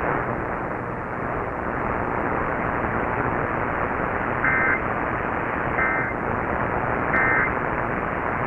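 Radio static hiss, then three short two-tone Emergency Alert System data bursts about a second and a half apart: the end-of-message code that closes the alert.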